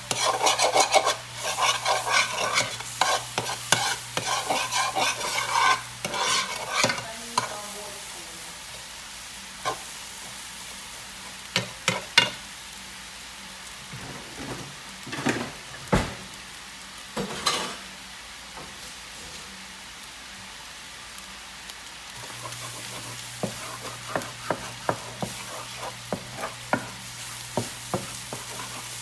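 Eggs scrambling and sizzling in a frying pan, a metal spoon scraping and stirring them in quick strokes. Midway the stirring pauses to a steady sizzle with a few sharp knocks, then the stirring starts again.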